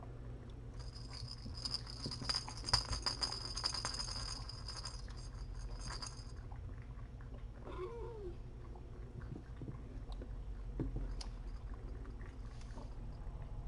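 A cat play toy rustling and clicking for about five seconds as it is waved for kittens, then a short, pitch-bending kitten mew about eight seconds in.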